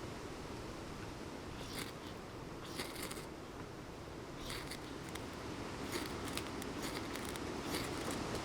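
A knife blade scraping in short, sharp strokes, a dozen or so in small clusters, over a steady hiss of wind and rain.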